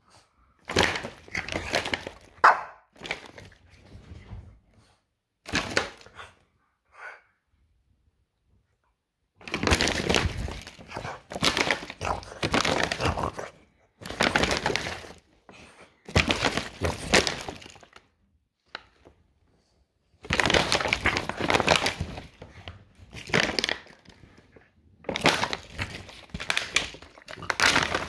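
A dog chewing and biting a plastic bottle: bursts of crackling, crunching plastic, some short and some lasting a few seconds, with brief pauses between.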